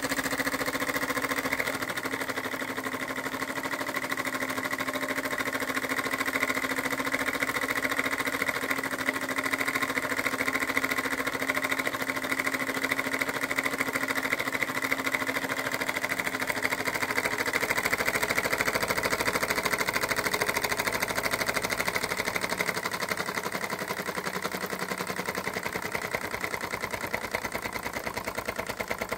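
Hecton M53 model steam engine, made by Hobran Engineering around 1925, running steadily at speed with a rapid, even beat.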